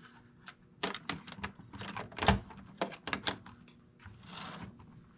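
Handling noise as a cover is fitted onto a small model: a run of sharp, irregular clicks and taps, then a short soft rustle about four seconds in.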